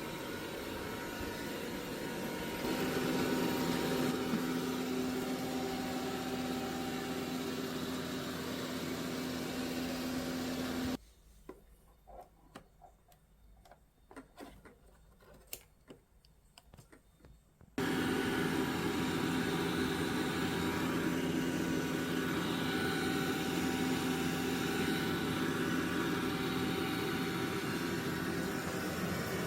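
Dreame L20 Ultra robot vacuum running with a steady motor hum and hiss. Around the middle the sound cuts out abruptly for about seven seconds, leaving near quiet with a few faint clicks, then resumes.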